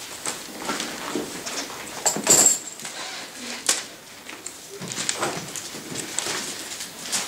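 Bible pages being turned and rustling, with scattered small knocks and shuffles as a reading is looked up. The loudest moment is a brief rustle or clatter about two seconds in.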